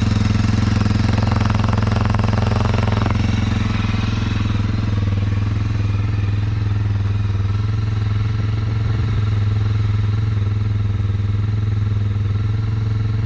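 Kawasaki KLX230R's fuel-injected single-cylinder engine idling steadily, warming up its oil.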